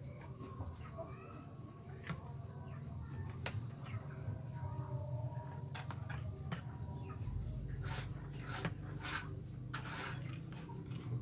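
Field crickets chirping in rapid, regular pulses, several a second, with a short rustle of the bamboo cage being handled about eight to ten seconds in.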